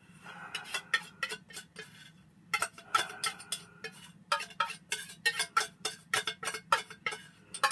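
Metal kitchenware clicking and clinking in quick, uneven strokes, several a second, thickest in the second half.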